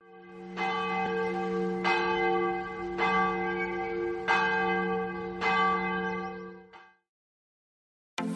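Large bell tolling about five times, a little over a second apart, each stroke ringing on into the next. The sound fades away about seven seconds in.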